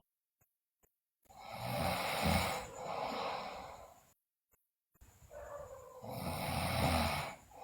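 A sleeping girl snoring loudly: two long snores, the first starting about a second in and the second about five seconds in, with dead silence between them.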